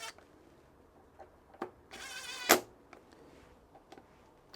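Cordless drill-driver buzzing briefly for about half a second as it runs in a mudguard bolt, ending in a sharp click, with a few light tool clicks around it.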